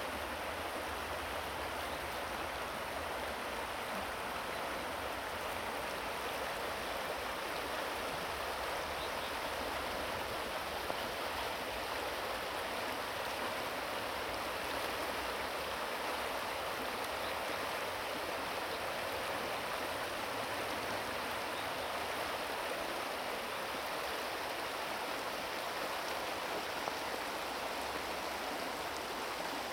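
River water rushing steadily over shallow gravel bars and riffles, a continuous even rush with no breaks.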